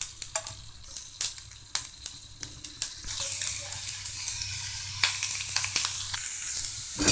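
Mustard seeds and dal crackling in hot oil, with scattered sharp pops. About three seconds in a steady sizzle sets in as chopped onion, curry leaves and green chillies fry and are stirred with a steel spatula; the sizzle gets louder about two seconds later, and a single knock comes near the end.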